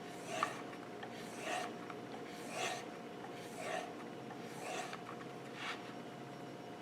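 Kitchen knife blade drawn along the flesh side of a leather strop loaded with compound: six soft rubbing strokes, about one a second.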